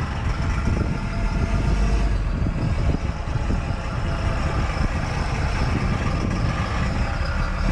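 A backhoe's diesel engine idling steadily.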